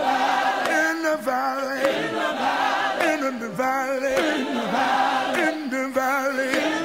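Gospel choir singing held notes with a wavering vibrato, voices only with no instruments heard.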